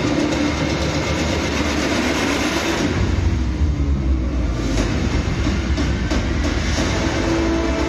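Loud show soundtrack over a hall's speakers: a dense, noisy sound-design passage with a deep rumble that swells about three seconds in, and a few held tones coming in near the end.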